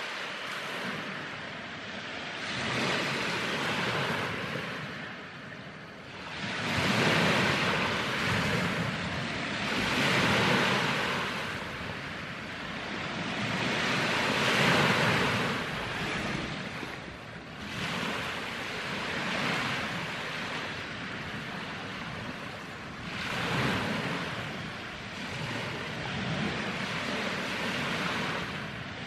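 Waves washing onto a shore: a rushing surf that swells and fades every few seconds.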